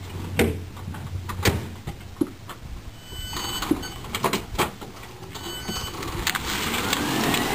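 A few separate clicks and knocks, then an electric-converted 1975 Volkswagen Beetle pulling away. From about six seconds in, tyre and drive noise builds with a faint rising whine and no engine note.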